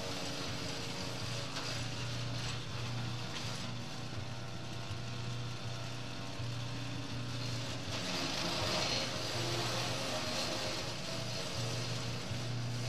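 Engine-driven garden wood chipper running steadily, with louder chipping noise about eight seconds in as branches are fed in and shredded.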